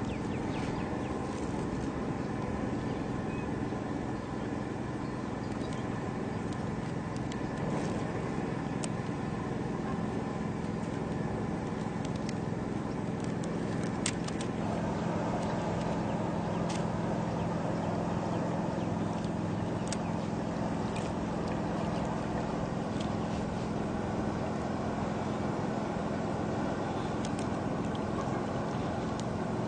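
A motor running steadily, a low hum that gets a little louder about halfway through, with scattered sharp clicks over it.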